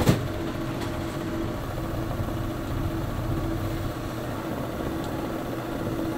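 Chimney cake oven running: a steady mechanical hum with a held low tone from the motor-driven spits turning the dough over the electric heater. Two sharp knocks right at the start.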